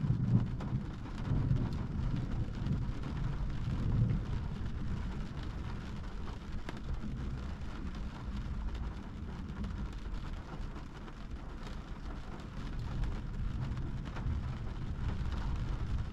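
Heavy rain pattering on a car's windshield and body, heard from inside the car, with a low rumble loudest in the first four seconds.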